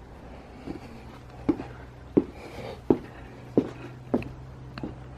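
A long saw chain drawn back and forth against an iPhone 7, making a sharp knock or scrape at each stroke, about one every two-thirds of a second, over a low steady hum.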